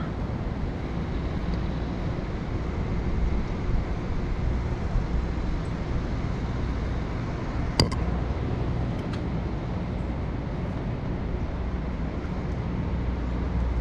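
Steady low rumble of outdoor background noise, with a single sharp click about eight seconds in.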